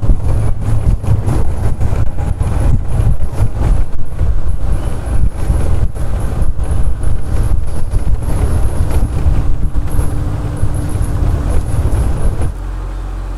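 Open Maruti Gypsy safari jeep driving fast along a bumpy dirt forest track: engine and rattling body under heavy, gusting wind buffeting on the microphone. Near the end it cuts suddenly to a quieter, steady rumble.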